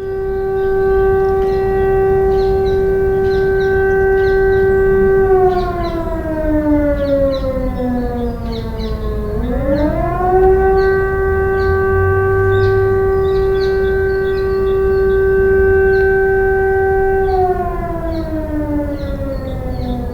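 French civil-defence air-raid siren sounding its monthly test. A wailing tone holds steady for about five seconds, slides down over about four seconds, swoops quickly back up and holds again, then begins to fall once more near the end.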